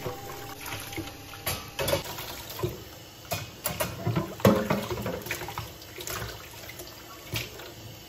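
Hand dishwashing at a stainless-steel sink: water splashing and running, with repeated short clinks and knocks as a glass, a ceramic bowl and utensils are washed and set into a metal wire drying rack.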